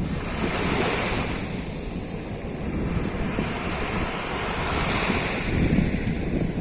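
Surf breaking and washing up a beach, surging twice, about a second in and again around five seconds, over a steady low rumble of the sea. Wind buffets the microphone throughout.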